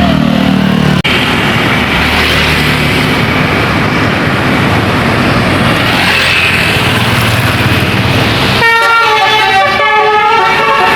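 Tour bus passing with engine and road noise, then, near the end, a 'telolet' multi-tone musical horn playing a short stepping tune.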